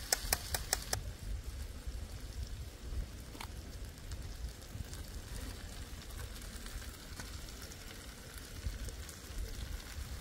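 Pot of chicken with rice and water just added, simmering over the fire, under a steady low rumble of wind on the microphone. A few quick clicks in the first second.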